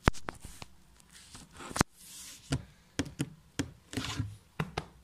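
Handling noise of a phone being held and moved by hand: an irregular string of sharp knocks and taps, the loudest right at the start and just under two seconds in.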